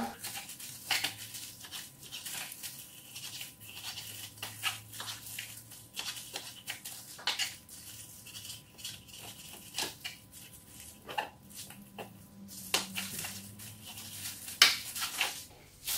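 Knife cutting raw beef sinew on a cutting board: a run of irregular short taps and slicing sounds, with a louder tap near the end.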